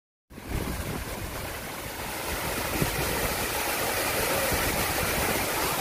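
Waterfall rushing steadily over rock into a pool, cutting in after a brief moment of silence.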